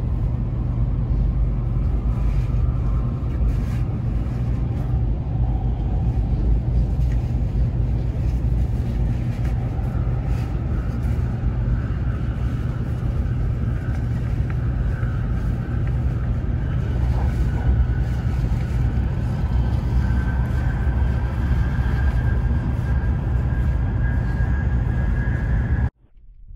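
Taiwan High Speed Rail train running: a steady low rumble with a faint whine that rises slowly in pitch through the second half. The sound cuts off suddenly near the end.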